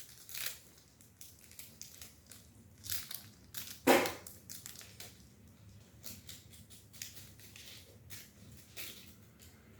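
Slime with little beads mixed in being squeezed and worked by hand, giving irregular crunching, crackling clicks. The loudest crunch comes about four seconds in.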